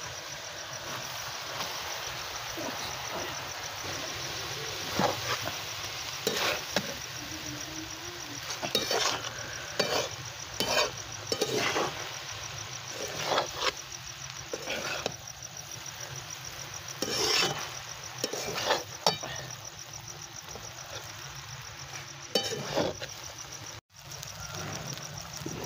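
Metal spatula tossing and stirring noodles and vegetables in a large metal wok over a steady sizzle, with irregular clanks and scrapes against the pan. Crickets chirp steadily in the background.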